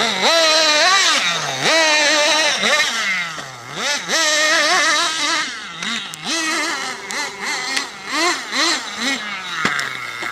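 Nitro RC buggy's small glow engine revving up and down repeatedly, its pitch rising and falling every second or so. Near the end there is a sharp knock as the buggy crashes and tumbles over, and the engine drops back to a low idle.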